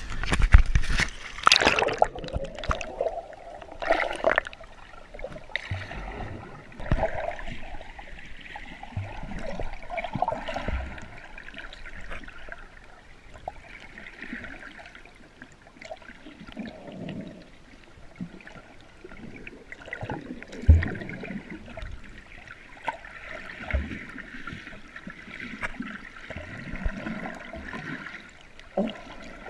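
A splash as the camera goes into the sea, then water sloshing and gurgling around the camera as it moves underwater over the reef, with a few light knocks.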